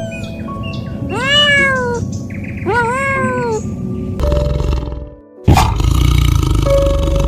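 A domestic cat meowing twice, each a long meow that rises and then falls in pitch. From about four seconds in, a loud, low, rumbling noise takes over, broken once by a brief gap.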